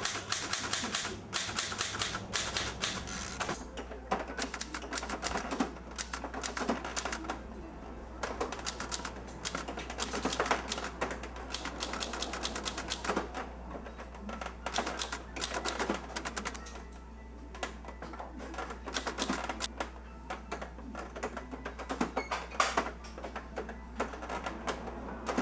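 Typewriter keys clacking in quick, uneven runs of strikes with short pauses between them.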